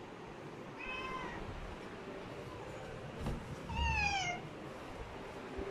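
A cat meowing twice: a short meow about a second in, then a longer, louder meow near the middle that falls in pitch.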